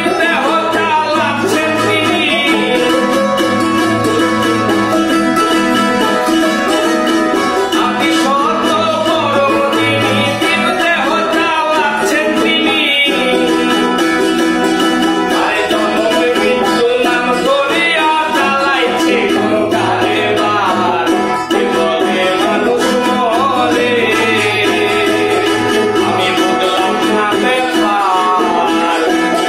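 A man singing a Bengali song, accompanied by a strummed ukulele and acoustic guitar.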